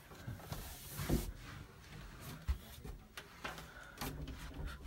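Quiet, scattered knocks and rustles of someone moving through a doorway, hands bumping and sliding on a wooden door and its frame.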